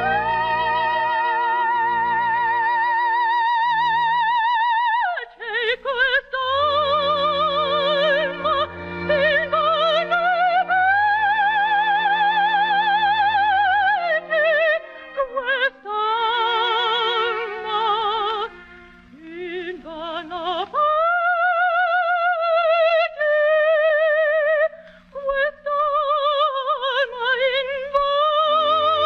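Operatic soprano singing long, high, held notes with a wide vibrato over sustained instrumental accompaniment, on an early broadcast recording.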